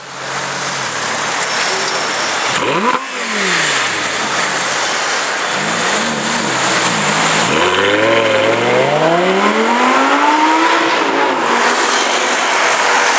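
Audi R8 Spyder's 5.2-litre V10 engine revving: one quick rev about three seconds in, a few short throttle blips around six seconds, then a long climbing rev from about eight seconds that peaks and drops away near eleven seconds. Steady street noise runs underneath.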